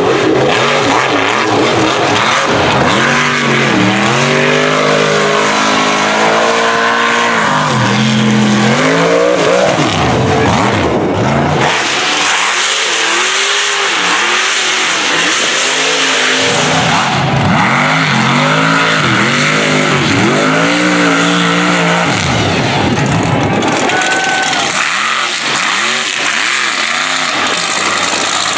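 Mega truck engines revving hard, their pitch climbing and dropping again and again as the trucks race through the course, over a steady hiss.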